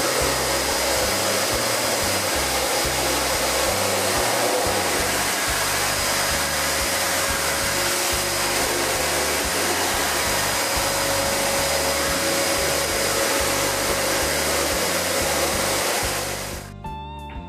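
Eureka Forbes 20-litre wet-and-dry canister vacuum cleaner running steadily under suction, a loud even rush of air with a faint steady whine. It cuts off abruptly about sixteen and a half seconds in, and guitar music takes over.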